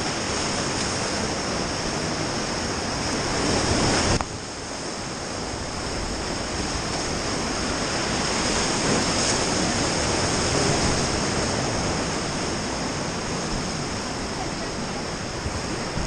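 Whitewater rapids rushing and churning around an inflatable raft in a steady loud wash of water noise. It builds up, falls off suddenly about four seconds in, then swells again.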